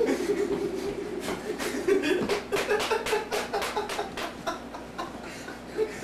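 Microwave oven running with a butane lighter inside it sparking, a quick irregular run of sharp crackling snaps over the oven's steady hum, with people chuckling.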